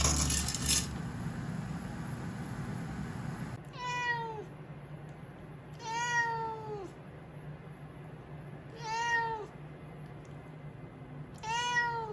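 A house cat meowing four times, a few seconds apart; each meow is under a second long and drops in pitch at the end. Background music fades out before the first meow.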